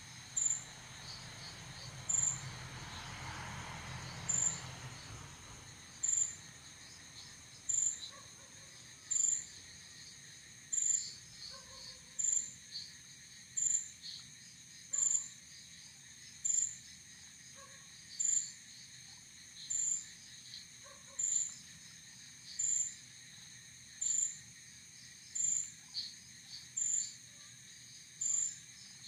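Night insect chorus of crickets: a steady high-pitched trill, with a loud high chirp repeating about every second and a half and fainter scattered chirps beneath it. A low rumble swells and fades over the first few seconds.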